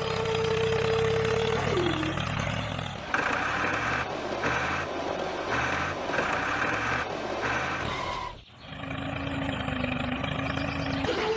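Small electric motor of a toy tractor and dump trailer whining, then winding down about two seconds in, over a rough mechanical rumble. A higher pulsing sound comes on and off about every two-thirds of a second, the sound cuts off abruptly about eight seconds in, and a lower whine follows before the first whine starts again near the end.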